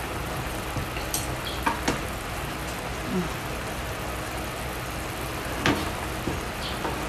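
A metal fork scraping and tapping on a plastic cutting board as boiled chicken is shredded, giving a few sharp clicks, the loudest about two seconds in and near six seconds, over a steady hiss.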